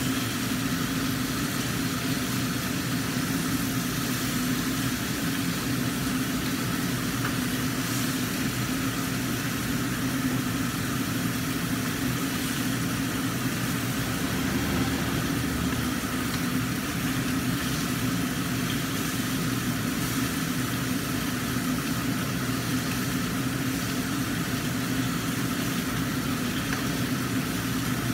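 Steady hum of a kitchen range hood fan, with the even sizzle of mackerel frying in oil in a lidded wok.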